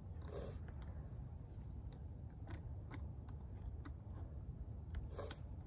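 Scattered small metallic clicks and rattles of a chainsaw chain being handled and fitted back onto the guide bar of a Homelite 14-inch electric chainsaw, with a slightly louder rattle about half a second in and again near the end. A low steady rumble runs underneath.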